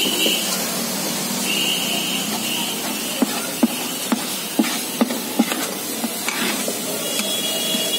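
Metal spatula scraping and tapping on a wide metal pan as gajar ka halwa (carrot halwa) is stirred and heated, over a steady hiss. From about three seconds in, the spatula knocks sharply on the pan, about two clicks a second.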